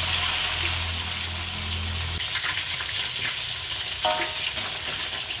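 Pieces of freshly washed ikan keranjang (basket mackerel) frying in hot oil in a steel wok: a steady loud sizzle. About four seconds in, a metal spatula scrapes briefly against the wok as the fish are turned.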